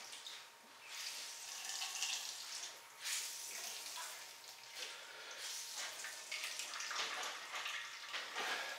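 Potato water squeezed from a wrung-out dish towel full of shredded potatoes, trickling and splashing into a stainless-steel bowl in uneven spurts.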